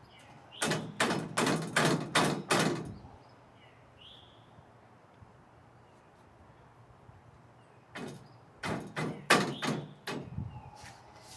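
Two runs of sharp knocks and bangs, about six each, one near the start and one about eight seconds in: exercise-machine parts knocking together as they are handled and fitted during assembly.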